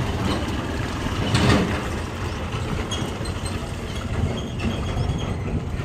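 Heavy diesel engine of a loaded Ashok Leyland 22-tyre bulk cement tanker truck running with a low, steady rumble as it pulls away around a hairpin, easing slightly as it moves off. A brief rush of noise comes about a second and a half in.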